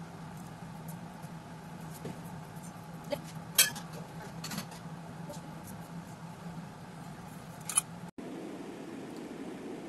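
A few light clicks and clinks of small objects being handled on a table, the sharpest about a third of the way in and another near the end, over a steady low hum. Shortly after the last click the hum cuts out and a softer hiss takes over.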